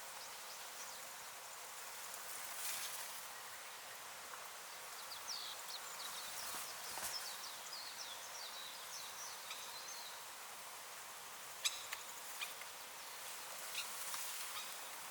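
Outdoor ambience of a steady high insect hiss with scattered short, high bird chirps. The chirps bunch together in the middle, and a few sharp clicks come near the end.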